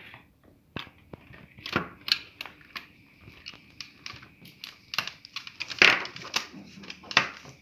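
Plastic clips of a Volkswagen Passat B5 centre dashboard air-vent grille clicking and creaking as a small screwdriver prises the outer cover loose, with irregular sharp clicks and knocks of plastic being handled, the loudest near the middle and near the end.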